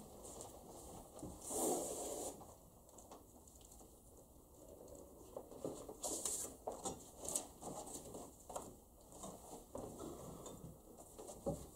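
Papers rustling and being handled, with two short rustles about two and six seconds in and scattered light taps and knocks between them.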